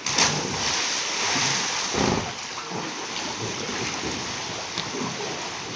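Pool water splashing and sloshing against an inflatable life raft as swimmers in life jackets move along it and climb onto it, loudest in the first two seconds, with a dull thump about two seconds in.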